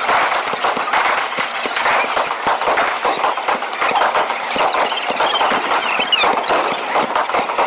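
Fireworks display: a dense, continuous crackling of many shells bursting and their stars sparkling, with a few brief whistles from shells in the air.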